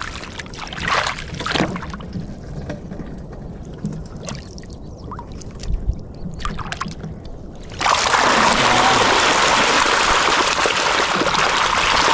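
Scattered water splashes, then about eight seconds in a loud, steady rush of flowing water sets in: paddy-field water overflowing into a channel.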